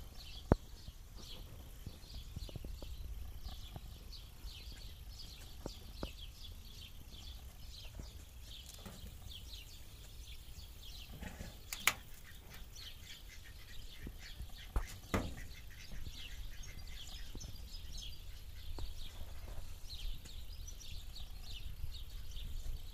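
Small birds chirping over a low rumble, with a few sharp clicks. The loudest click comes about half a second in, and others come near the middle.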